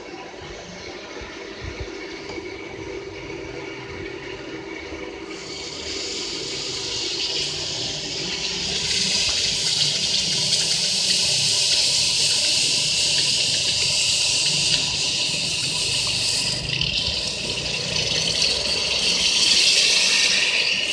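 Hot steel axe head being quenched in a bucket of water for hardening: the water hisses and boils around the steel. The hiss is fainter at first, grows strong about five seconds in, and eases near the end.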